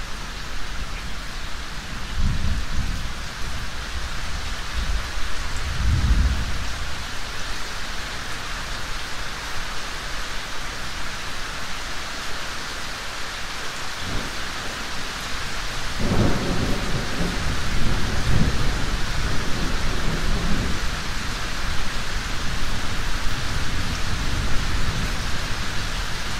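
Close thunderstorm: steady heavy, driving rain, with two low rumbles of thunder in the first several seconds, then a longer rumble that starts about halfway through, swells and fades.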